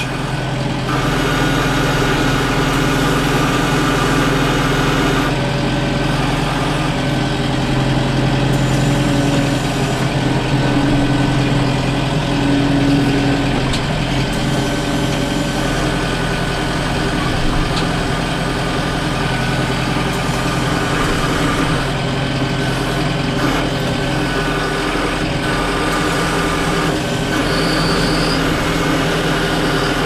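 Loader tractor's engine running steadily under load, heard from inside the cab, with a higher whine that comes and goes as the front-end loader works.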